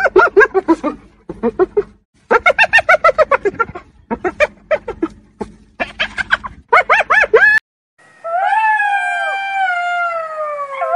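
Spotted hyena giggling: several runs of quick, high, arching yelps. After a short pause, a black-backed jackal's long howl falls slowly in pitch, and a second howl starts near the end.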